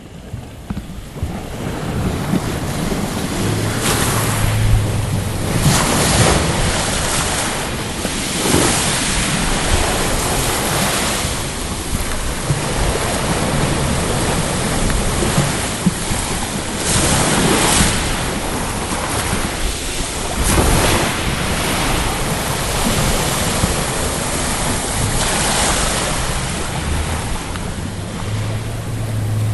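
Sea surf washing and breaking, swelling and easing every few seconds at irregular intervals, with wind buffeting the microphone.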